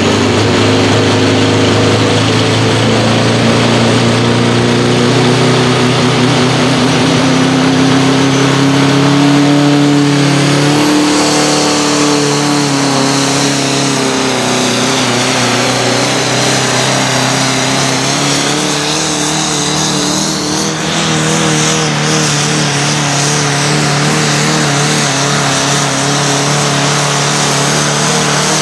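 Orange Fiat farm tractor's diesel engine at full throttle pulling a tractor-pulling sled, running loud and steady. Its pitch climbs slightly, dips about a third of the way in, then holds lower as the engine lugs under the sled's growing load.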